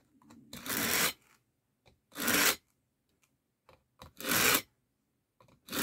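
A steel knife blade drawn through the coarse slot of a Smith pocket sharpener, four rasping pull strokes about a second and a half apart, each about half a second long.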